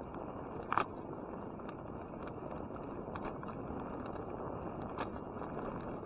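Bicycle rolling along an asphalt road: a steady rush of tyre and wind noise, with scattered light clicks and rattles. A sharper knock comes about a second in and another near five seconds.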